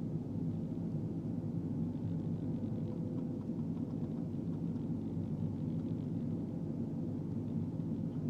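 Diesel engine of a Manitowoc 2250 crawler crane running steadily, a low, even drone, heard from the operator's seat.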